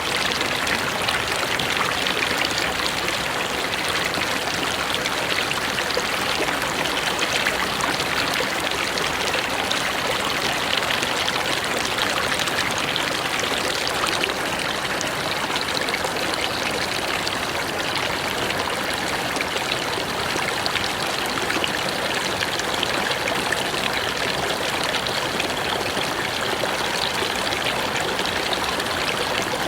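Mountain river flowing: a steady rush of water that neither swells nor fades.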